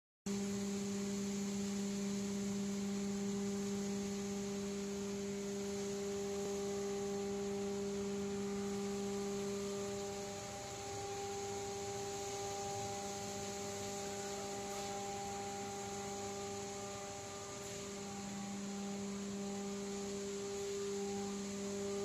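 Steady electric hum of feed-mill machinery running, a constant drone with a few fixed tones over a low noise haze.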